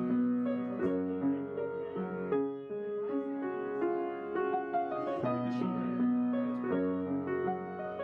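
Background music: a piano track of held chords with notes that change about every half second.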